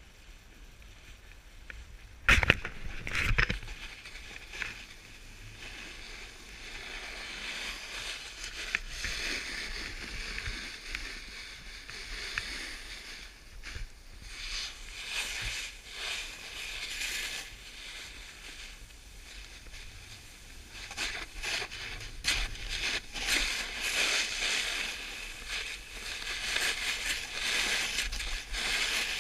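Snowboard sliding and turning on packed snow: a hissing scrape that swells and fades with each turn. A few loud knocks come about two to three seconds in.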